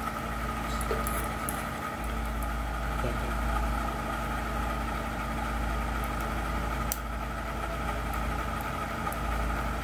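Steady hum with a faint high whine and a light click about seven seconds in.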